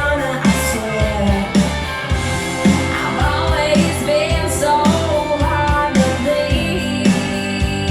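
Pop-rock song with a singing voice and a steady kick-drum beat about twice a second, played through a pair of Bose S1 Pro speakers with a single Bose B1 bass module crossed over at 100 Hz.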